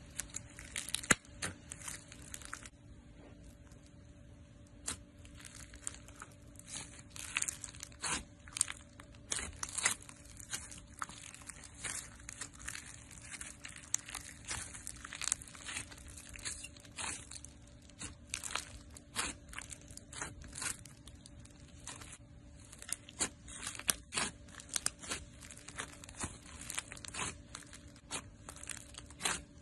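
Hands squeezing, stretching and pressing foam-bead slime, giving a dense, irregular stream of sharp crackles and pops as the beads and air pockets burst.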